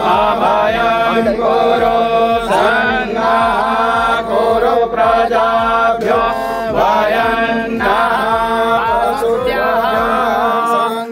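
Hindu mantra chanting: voices reciting in a sing-song chant over a steady held drone.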